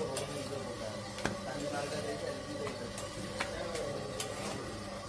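Rotis cooking on a large iron tawa over a wood fire: a steady sizzle and crackle, broken by a few sharp clicks.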